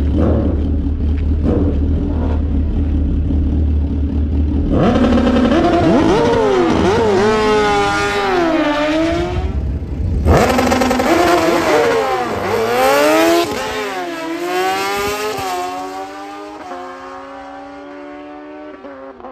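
Drag-racing motorcycle engines idling at the starting line with a few light revs, then launching hard: the engines climb in pitch and drop back with each gear shift. The launch is heard again from about ten seconds in, then the engine note falls and fades as the bikes run away down the track.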